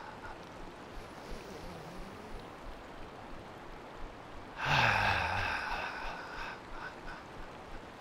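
A man's long, deliberate sigh out through the mouth about halfway through, loud at the start, then falling in pitch and fading away. It is a qigong sighing breath meant to release tension. Under it runs the steady rush of a fast mountain river.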